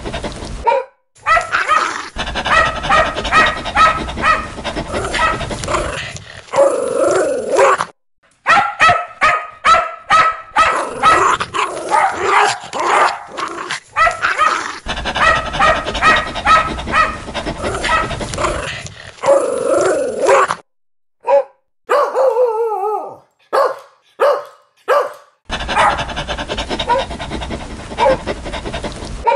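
Dogs barking loudly and aggressively, in a string of spliced clips broken by short silent cuts. About two-thirds of the way in, the dense barking drops to a sparser run of single short calls, then resumes near the end.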